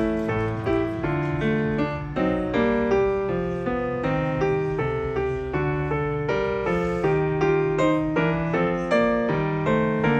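Background piano music, notes played at an even pace.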